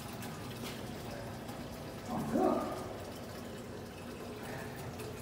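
Water vending machine dispensing water into a plastic jug: a steady running-water sound as the jug fills. A short louder sound breaks in about two seconds in.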